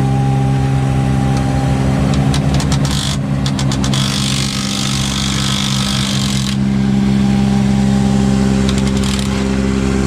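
A DeWalt cordless impact driver hammers at a mud flap bracket bolt: clicking from about two seconds in, then a steady rattle that stops abruptly near the middle, with a few more clicks near the end. Under it a large diesel truck engine idles steadily throughout.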